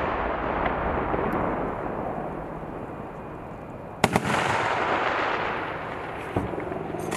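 Rumble of a large explosion on a live-fire range, echoing and dying away. About four seconds in comes another sharp blast, a double crack, and its rumble rolls and fades in turn.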